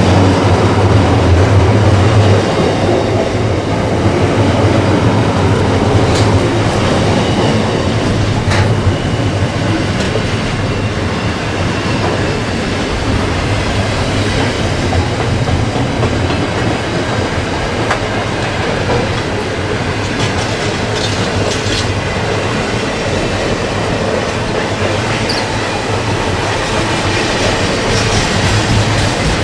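Container wagons of a long freight train rolling past close by: steady wheel-on-rail noise with clickety-clack over the rail joints. A few sharp clanks and brief high-pitched wheel squeals come through the rumble.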